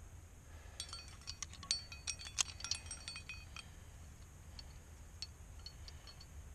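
Metal climbing gear on a harness rack clinking and jangling: carabiners and protection knocking together as the climber moves. There is a quick flurry of ringing clinks about a second in, then a few scattered single clinks.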